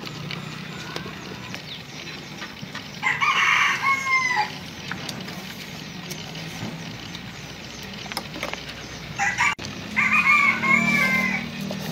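A rooster crowing twice, once about three seconds in and again near the end, each crow about a second and a half long and dropping in pitch at its close. A steady low hum runs underneath.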